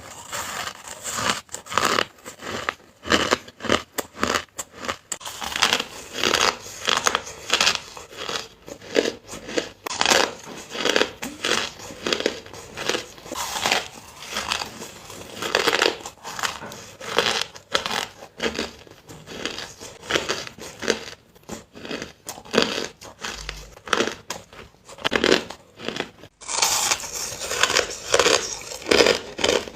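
Close-up crunching and chewing of hard crushed ice in big bites: a rapid, uneven run of crisp crunches.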